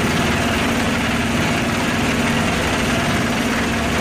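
Engine of a small wooden motorboat running steadily under way: one constant low hum over a dense rushing noise.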